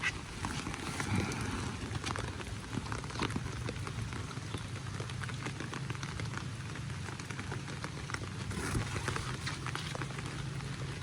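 Rain falling steadily, a continuous hiss with many small drop ticks scattered through it, over a low steady rumble.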